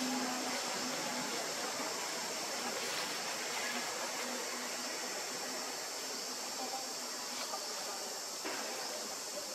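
Steady forest ambience: a continuous high-pitched hiss, with a faint low hum in the first second or so and a few faint ticks.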